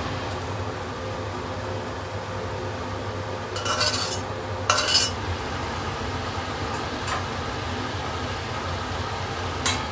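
Metal spatula scraping and clinking against an iron wok in two short strokes about four and five seconds in, with a few lighter knocks later. Under it runs a steady kitchen hum.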